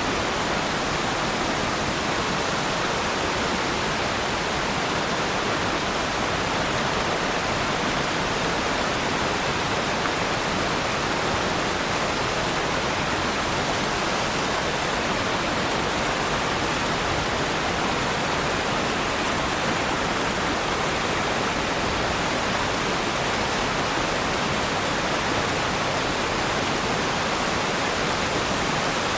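Waterfall: water falling and splashing in a steady, even rush with no change.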